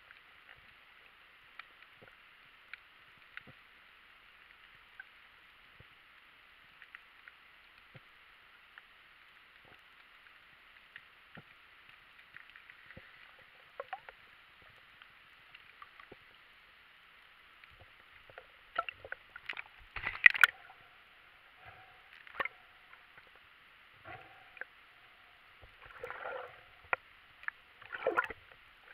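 Underwater ambience recorded through a waterproofed camera: a steady, muffled hiss with faint scattered clicks. From about two-thirds of the way through come louder sharp knocks and bursts of sloshing, gurgling water close to the camera.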